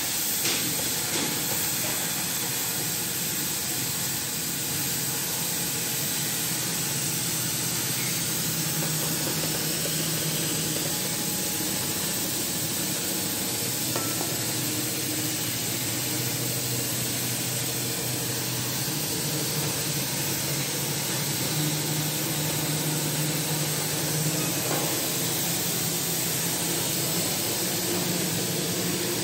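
Oxy-fuel cutting torch on a CNC cutting table hissing steadily as its jet burns through steel plate, with a faint low machine hum underneath.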